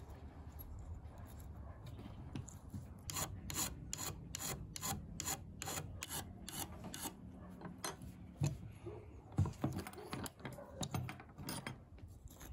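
A small flat metal file rasping across the edge of a clamped aluminum dog-tag blank, rounding its corner. It goes in quick, even strokes, about three to four a second, from a few seconds in, then turns to slower, uneven strokes near the end.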